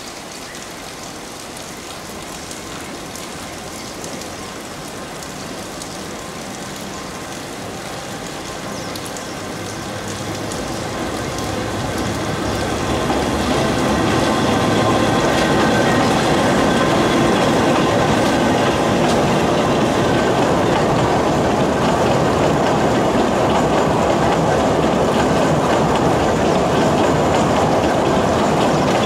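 Kurobe Gorge Railway narrow-gauge construction train, an electric locomotive hauling trolley cars, running past on the rails. The running noise grows louder over the first half as the train draws near, then holds steady as the cars go by, with wheels clattering on the track.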